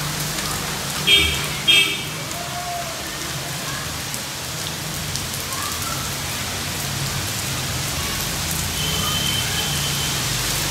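Steady hiss of rain falling, with two short high-pitched chirps a little after a second in.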